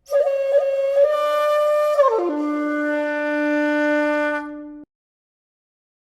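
Jinashi 1.7 shakuhachi (bamboo end-blown flute) playing a held middle note with three quick finger-struck accents. About two seconds in it slides down to a long, steady low note on the flute's fundamental, with breathy air noise over the tone. The note stops abruptly near the end.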